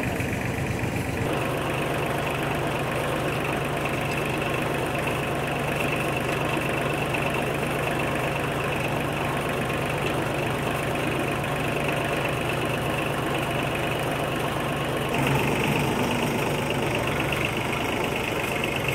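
An engine idling steadily, a little louder about fifteen seconds in.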